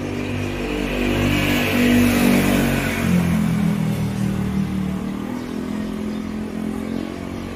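Motorbike engine passing on the street, loudest about two seconds in and then fading as it draws away, its pitch shifting as the rider works the throttle.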